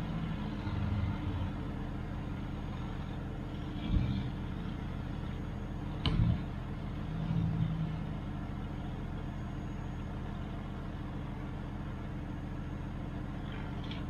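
Four-wheel drive's engine running steadily at low speed on a rough dirt track, picked up by a camera mounted on the vehicle's bonnet, with sharp knocks about four and six seconds in.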